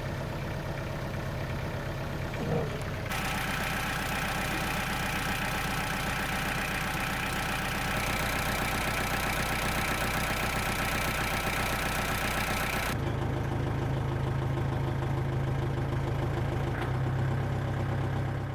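Kubota L3600 tractor's four-cylinder diesel engine running steadily. About three seconds in, a high whine and clatter suddenly join it and hold for about ten seconds, then cut off, leaving a stronger low hum.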